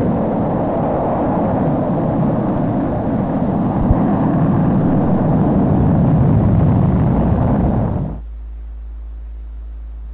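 Mercury-Redstone rocket engine at liftoff: a loud, steady roar that cuts off about eight seconds in, leaving only a low hum.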